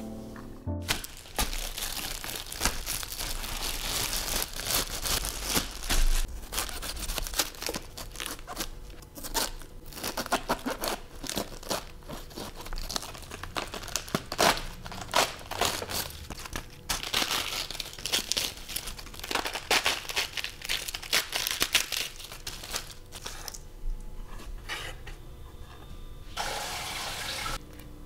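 Crisp crackling, snapping and tearing as leaves are pulled off a head of iceberg lettuce, uneven and continuous. Near the end comes a brief steady hiss.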